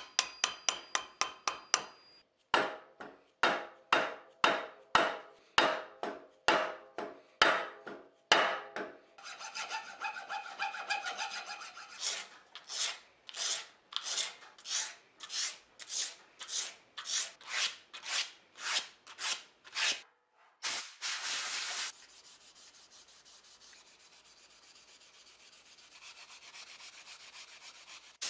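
Hand-scraping a wooden hammer handle: after a few quick short scrapes from a small cutter, a steel card scraper is drawn along the wood in repeated strokes about one and a half a second. A brief louder rush of noise comes about twenty seconds in, and soft sandpaper strokes follow near the end.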